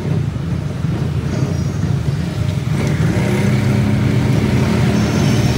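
Auto-rickshaw engine running steadily, heard from inside the open three-wheeler amid traffic noise; the engine note picks up and grows a little louder about three seconds in.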